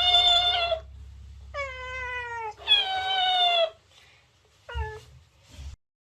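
A cat meowing: four drawn-out meows, the last one short and falling in pitch, over a low steady hum. The sound cuts off abruptly near the end.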